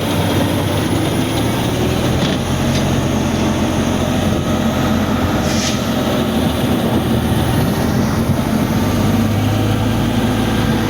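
Truck-mounted concrete pump's engine running steadily under load, a loud, continuous low hum of heavy machinery.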